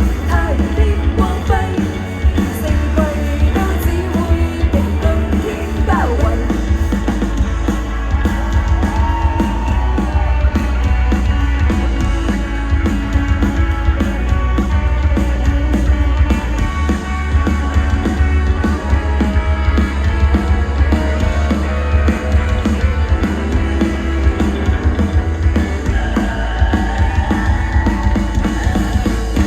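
Live band playing a song, loud and continuous, with drum kit, heavy bass and sung vocals.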